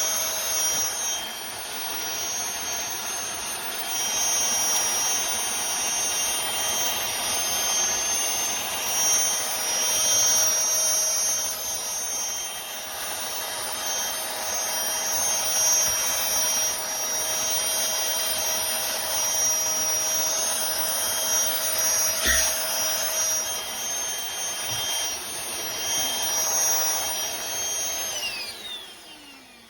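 Aspiron cordless handheld vacuum cleaner running, a steady high motor whine over rushing air. It is switched off near the end and the motor winds down, its pitch sliding down as the sound fades.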